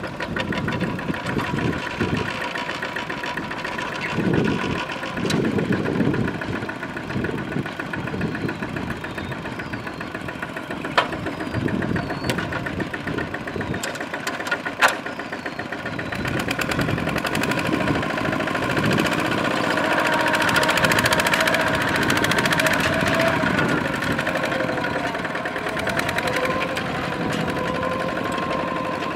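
Kubota single-cylinder diesel engine of a two-wheel walking tractor chugging under load as it pulls a trailer of rice sacks, its rapid firing beat rising and falling in pitch and growing louder past the middle. Two sharp knocks, about a third of the way in and near the middle.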